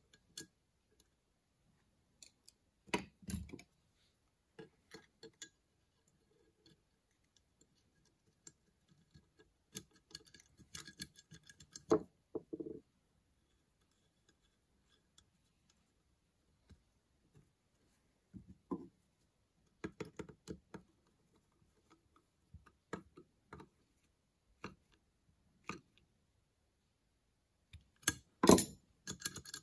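Small metal carburetor parts on a 1956 Dodge H6 truck's carburetor clicking and tapping as they are fitted by hand, in scattered light clicks with a few louder knocks about a third of the way in and a louder clatter near the end as the carburetor body is handled.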